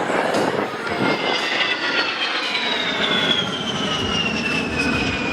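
A-10 Thunderbolt II's twin General Electric TF34 turbofan engines passing by, a high whine falling steadily in pitch over a loud rush of jet noise.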